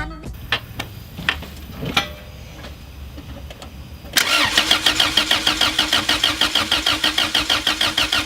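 A few faint clicks, then about four seconds in a Honda B18C four-cylinder engine cranking on its starter motor with a fast, even pulsing rhythm.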